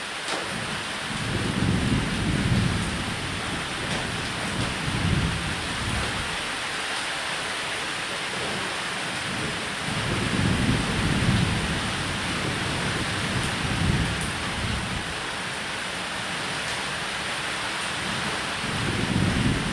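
Steady heavy rain with low rolling thunder rumbling over it several times, the rumbles swelling and fading about two seconds in, around ten seconds, and again near the end.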